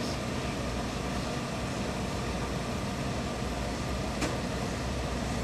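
Steady low mechanical hum of a tailoring workroom, with a single sharp click about four seconds in as the steam iron is handled on the suit front.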